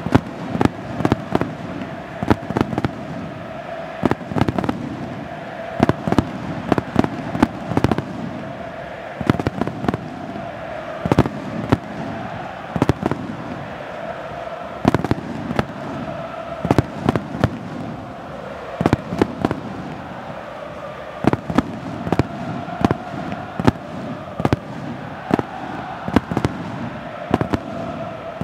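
Fireworks going off over a football stadium: a rapid, irregular run of sharp bangs and cracks, several a second at times, over the steady din of a large stadium crowd.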